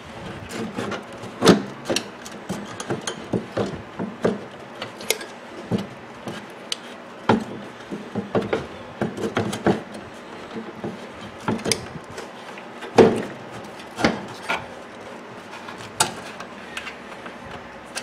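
A microwave oven's replacement high-voltage transformer being handled and worked into place in the oven's sheet-metal base: irregular clunks, clicks and scraping, with several sharp knocks.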